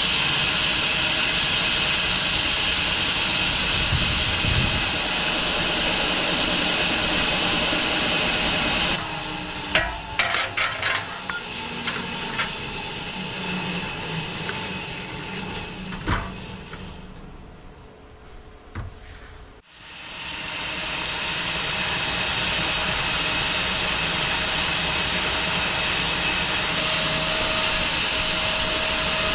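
Loud steady machinery noise with a constant whine, which stops after about nine seconds. Knocks and clatter follow, and it goes fairly quiet. About twenty seconds in, the machine starts up again and builds back to full noise within a couple of seconds.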